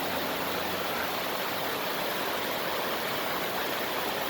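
Rain-swollen creek rushing over a small waterfall: a steady, even rush of water.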